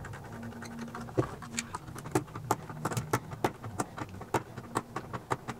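Small precision screwdriver backing screws out of a 3D-printed plastic case: a string of light, irregular clicks and ticks, about two to three a second.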